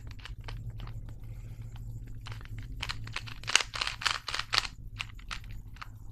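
Plastic Rubik's Cube being twisted by hand: a run of quick clicks and clacks as its layers turn, busiest from about two to five seconds in, over a low steady hum.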